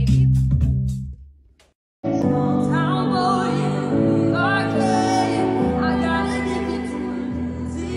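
Music with a quick, regular beat fades out about a second in, and after a short silence a woman starts singing a slow ballad, gliding between held notes over sustained backing chords.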